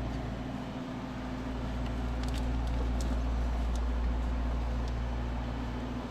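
Steady low machine hum, like a shop fan or air conditioner running, with a few faint light clicks from spark plug wires being handled.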